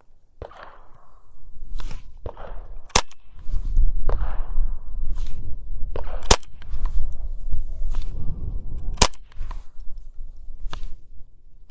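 Three single shots from a GSG-15 semi-automatic .22 LR rifle, sharp cracks about three seconds apart, each fired from low ready. Fainter sharp cracks fall between them, over a low rumble.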